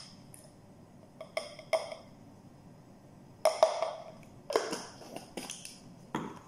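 Spice jar handled over a glass mixing bowl: a string of short, sharp knocks and clicks at uneven intervals, the loudest about three and a half seconds in.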